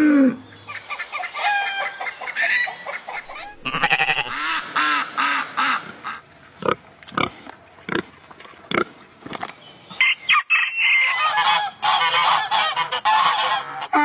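A run of farm-animal calls: repeated honking calls for the first few seconds, then a pig's short grunts from about six to nine seconds in, and a donkey braying loudly near the end.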